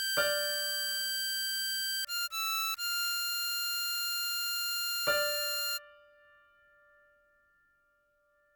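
Diatonic harmonica playing three long held notes of a simple melody, the middle one short, with the playing stopping a little under six seconds in. About five seconds in, a struck bell-like tone sounds and rings on, fading away.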